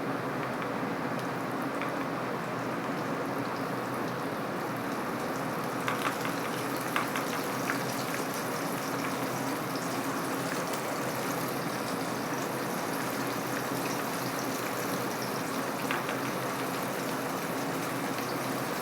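Flour-coated chicken skin deep-frying in hot oil: a steady sizzle, with a few louder pops and crackles about six to eight seconds in.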